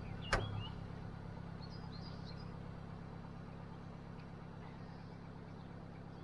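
Narrowboat diesel engine ticking over with a steady low hum. A single knock comes about a third of a second in, after which the hum drops and runs on quieter, as the boat is eased back to drift.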